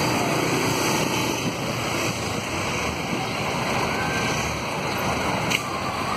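Steady rush of wind on the microphone mixed with road and traffic noise while moving slowly through a busy street.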